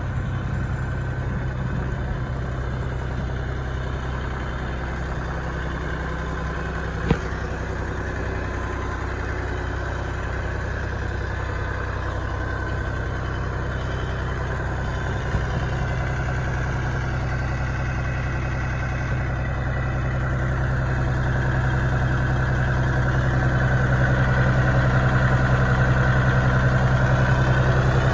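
John Deere compact utility tractor's diesel engine idling steadily, growing somewhat louder near the end. A single sharp click about seven seconds in.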